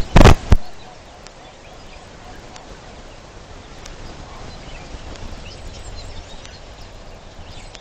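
A few loud, distorted crackling bursts in the first half second, then steady faint outdoor hiss with a few faint, high bird chirps in the second half.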